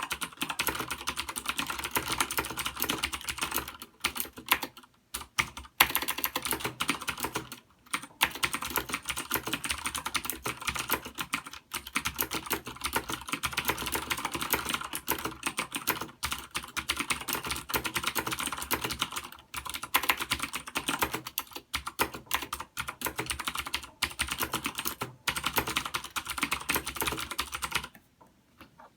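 Continuous fast typing on a Das Keyboard Ultimate mechanical keyboard with clicky Cherry MX Blue switches. The keystrokes come in a rapid stream with a few short pauses and stop about a second before the end.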